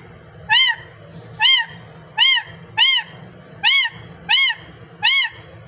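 A parrot giving seven short, repeated calls, each rising and falling in pitch, about one every three quarters of a second.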